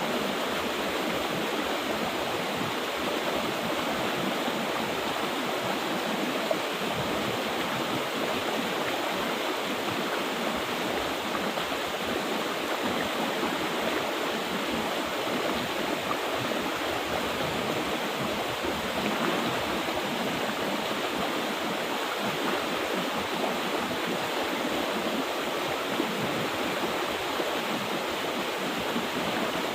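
Mountain river flowing, a steady, unbroken rush of water.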